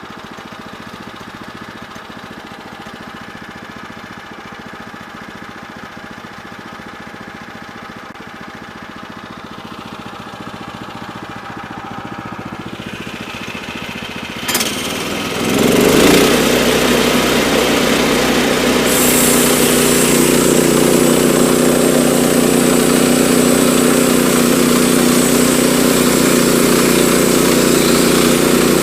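Woodland Mills HM122 sawmill's gas engine idling as it warms up. About halfway through there is a click, then the engine is throttled up to a louder, steady run, and a few seconds later a high hiss joins it.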